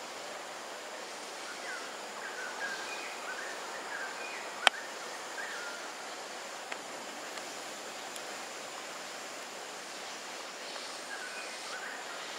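Steady outdoor background hiss with faint bird chirps scattered through it, and one sharp click a little under five seconds in.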